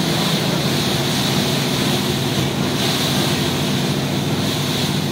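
A boat's engine runs steadily, with water rushing past the hull and wind on the microphone.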